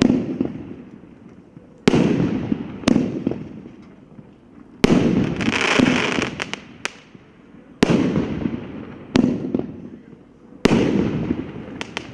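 50 mm consumer firework cake firing its shots one after another: about seven sharp bangs, one to three seconds apart, each trailing off in a rolling echo. Around five seconds in, one shot is followed by a crackling hiss with several small pops.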